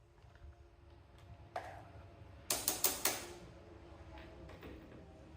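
Metal hand tools working on a tie rod nut: scattered light metal clicks, with a quick run of four or five sharp clinks about two and a half seconds in.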